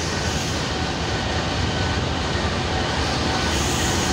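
GEU-20 diesel locomotive's engine running as the locomotive moves slowly past at close range: a steady deep rumble, with faint steady high tones over it.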